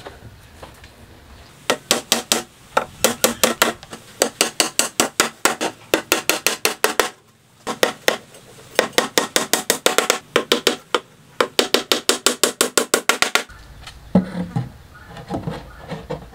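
Hammer driving nails into a plywood roof panel: quick runs of sharp strikes, about six a second, broken by short pauses. Near the end come a few lighter wooden knocks.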